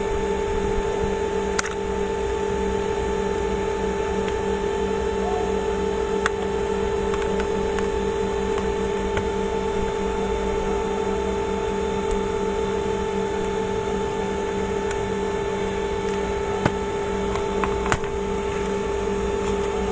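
A steady electrical machine hum made of a few constant tones, with a handful of faint sharp clicks.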